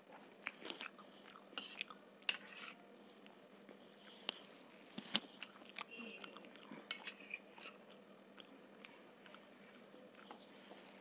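Close-miked chewing of veg masala Maggi noodles, with short wet mouth sounds and a few sharp clicks of a fork against a steel plate.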